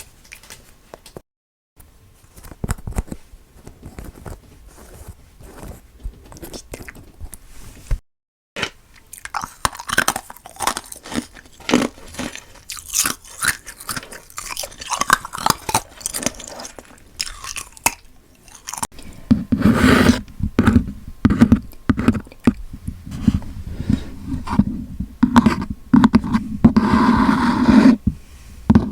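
Close-miked chewing and mouth sounds of someone eating durian: quick, irregular wet clicks and smacks. The chewing grows denser and heavier from about two-thirds of the way through.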